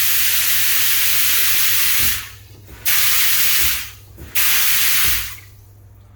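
High-pressure shower head spraying water hard. The spray cuts out about two seconds in, comes back, cuts out again, comes back once more, and stops about five seconds in.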